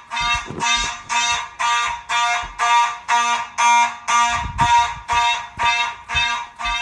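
Fire alarm sounding in rapid buzzing pulses, about three a second, set off by a magnet test of a smoke detector. A few low knocks sound underneath.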